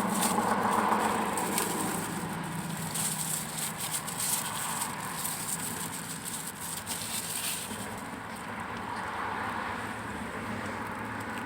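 Crinkling and clicking of a plastic take-out food container being handled, busiest for the first seven or eight seconds and then thinning out, over a low steady hum.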